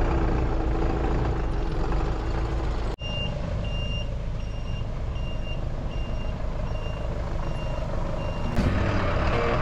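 Large vehicle's engine running, then its reversing alarm beeping steadily, about three beeps every two seconds, over the engine. Background music comes in near the end.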